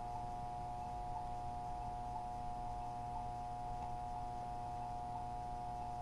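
Polara Navigator accessible pedestrian pushbuttons sounding their locator tone: short, faint ticks repeating at a steady pace, over a steady electronic tone.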